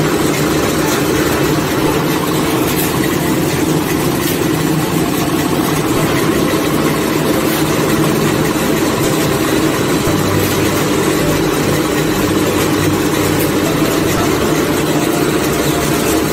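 Concrete block (batako) press machine running with a steady mechanical drone.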